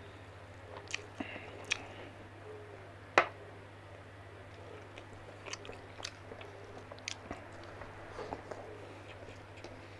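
A person eating chicken and rice by hand: chewing, with scattered clicks and small crunches as the chicken is picked apart. One sharp click about three seconds in is the loudest. A steady low hum runs underneath.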